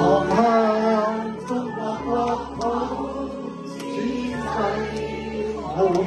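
A song playing, with a voice singing a melody over steady low accompanying notes.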